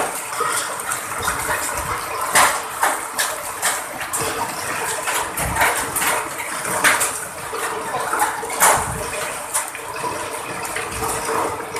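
Hailstorm: a dense, steady hiss of hail and rain pouring down, broken by irregular sharp louder hits of hailstones striking close by.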